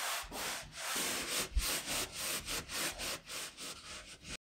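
A damp cloth rag scrubbed hard against drywall in quick back-and-forth strokes, a rhythmic rubbing of about four strokes a second. It cuts off abruptly near the end.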